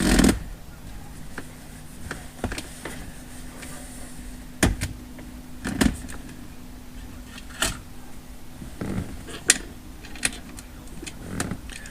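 Scattered clicks, knocks and bumps of a camera being handled and repositioned, with a louder thump right at the start.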